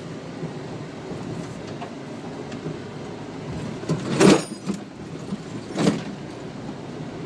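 Steady rumble and ride noise of an off-road vehicle driving over a dirt wash, heard from aboard it, with two loud short thumps about four and six seconds in.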